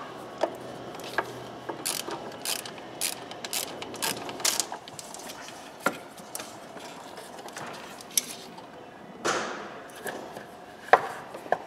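Irregular metallic clicks and rattles of hand tools and hose fittings as a hose is disconnected and unbolted in a car's engine bay. There is a short noisy burst about nine seconds in.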